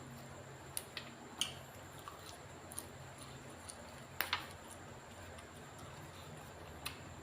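A person chewing food, with scattered small clicks and smacks, over a faint steady hum.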